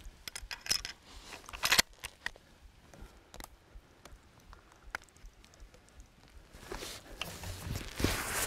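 Footsteps with small clicks and crunches. There are a few in the first two seconds, then a quiet stretch, and more steady steps start again near the end.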